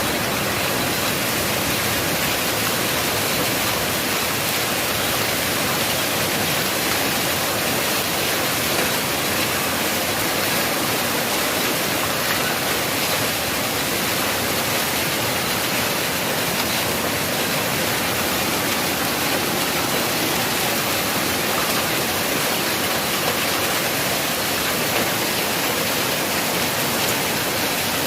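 Hailstorm downpour: rain and hail pelting down hard, a steady dense hiss with no let-up.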